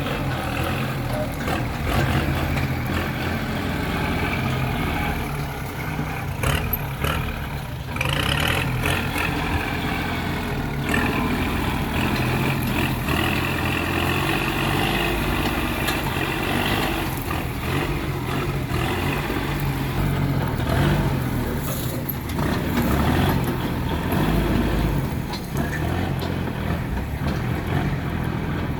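Heavy diesel earthmoving machinery running steadily, with a few short knocks now and then.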